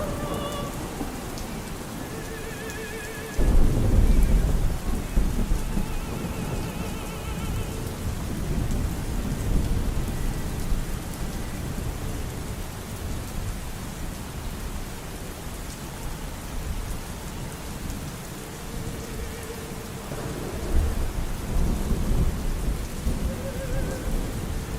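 Steady rain with thunder: a sudden loud rumble about three seconds in that slowly trails off, and another rolling rumble near the end. Faint, muffled operatic singing with a wavering vibrato drifts in and out beneath the rain.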